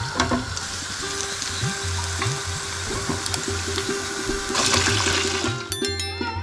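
Chicken lollipops deep-frying in a pot of oil: a steady sizzle, swelling briefly about four and a half seconds in, over background music. The sizzle stops near the end, leaving sitar music.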